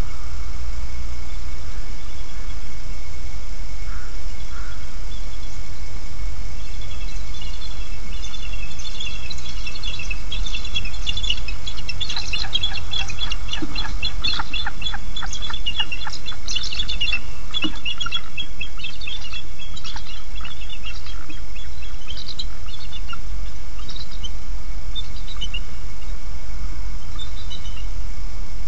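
Bald eagles calling in rapid runs of high, chittering notes. The calls build about seven seconds in, are densest in the middle, then thin to scattered notes, over a steady low background rumble; typical of the pair's alarm calls while chasing an intruding eagle.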